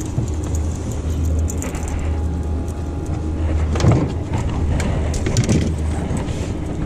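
A boat's motor running steadily with a low, even hum, with a couple of brief knocks about midway.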